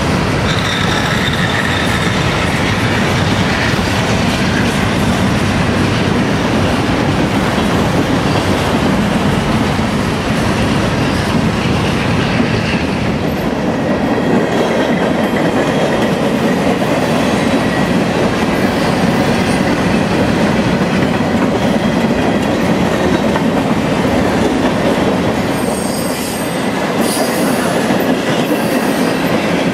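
Freight train cars rolling steadily past, steel wheels clattering over the rail joints, with a faint high wheel squeal at times.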